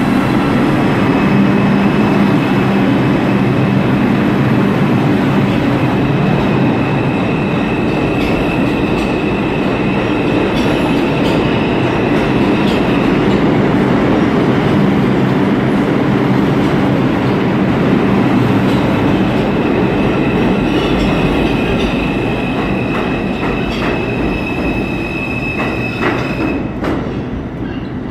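New York City subway train pulling out of the station past the platform, a loud rumble of wheels and traction motors with a high wheel squeal that comes and goes twice. It fades near the end as the last car leaves into the tunnel.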